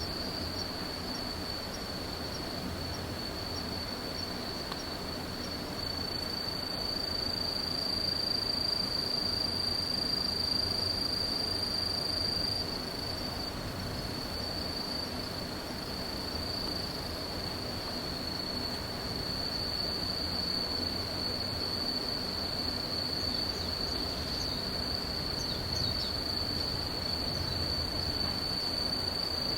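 Crickets singing in a chorus: a continuous, high-pitched, even trill that holds steady, over faint low background noise.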